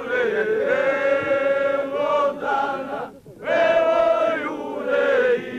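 Group of men's voices singing together in long held notes, with a short break for breath about three seconds in.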